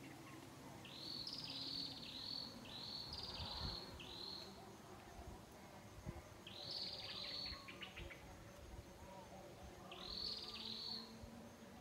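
High chirping animal calls in four bursts of three or four quick notes, each note rising then falling in pitch; the third burst ends in a short rattle.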